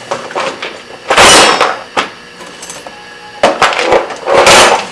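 Metal-cutting band saw blade biting into a small piece of 3/8-inch steel bushing stock in three short, loud rasping bursts, with sharp knocks between them: small round stock like this tends to grab as it is cut.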